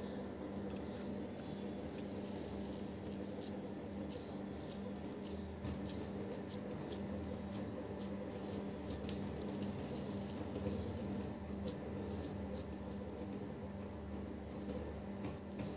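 Soft, sticky clicks and pats of hands pressing moist sabudana and potato mixture into flat cutlet patties, scattered unevenly through, over a steady low hum. A few faint, short high chirps come through now and then.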